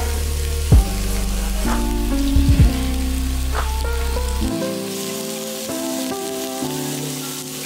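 Beef sizzling on a hot ridged grill pan, a steady frying hiss, under instrumental background music whose deep low note drops out about halfway through.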